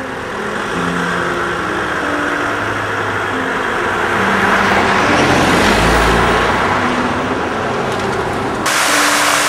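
A car passes close by on a street, its tyre and engine noise swelling to a peak just past halfway, with a low rumble as it goes by, while piano music plays. Near the end the sound cuts suddenly to a steady hiss.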